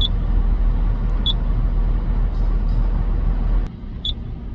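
Short high beeps from an excavator's monitor panel as its buttons are pressed, three in all, over a steady low machine rumble. Near the end a click comes and the rumble drops sharply.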